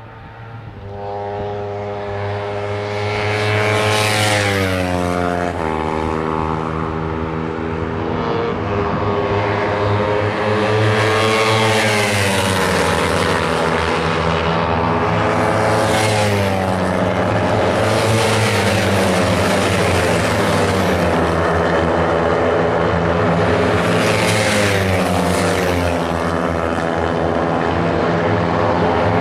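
Kawasaki Ninja 300 race motorcycles, small parallel twins, run at high revs down the straight. Several bikes sweep past one after another, each with a drop in pitch as it goes by, and the sound grows louder over the first few seconds as the pack arrives.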